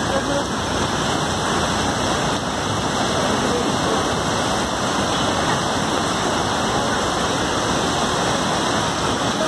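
Floodwater rushing through a swollen river in a steady, unbroken rush of churning water, mixed with falling rain.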